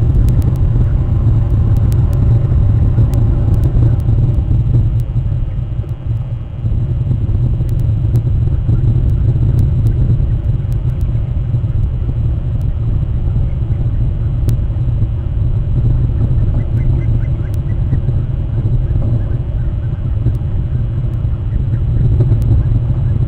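A loud, steady low rumble, with a faint humming tone that fades out over the first few seconds and scattered faint clicks.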